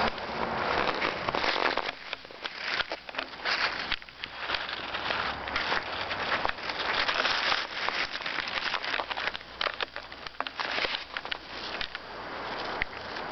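Snow crunching underfoot, an irregular crackle of short crunches.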